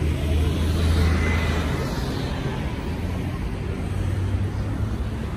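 Street traffic: a steady low rumble of cars on the road, with a vehicle passing close about a second in.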